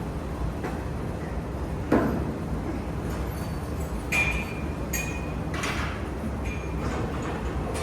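A dull thump, then a handful of light metallic clinks, a few of them ringing briefly, over a steady low rumble of distant traffic.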